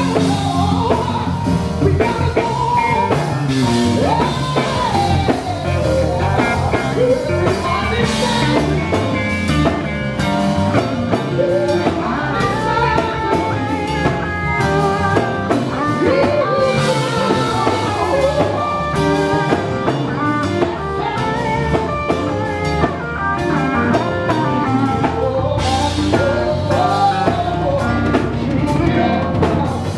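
Live gospel quartet music: voices singing over guitar and drum kit, the vocal lines sliding and ornamented.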